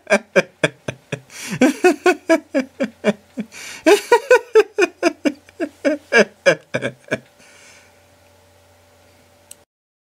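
A person's voice laughing in a long run of short, quick bursts, about four or five a second, each falling in pitch, with audible breaths in between; the laughter stops about seven seconds in.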